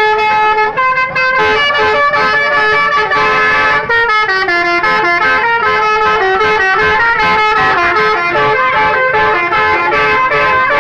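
Indonesian telolet bus horns playing a tune: several loud, sustained horn notes stepping up and down in pitch, overlapping like a melody, with short breaks about a second in and near four seconds in.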